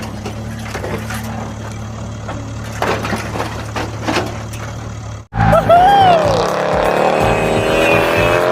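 Steady low engine hum. About five seconds in it cuts off sharply into a louder engine sound that rises in pitch like revving, with a brief falling whine at the start of it.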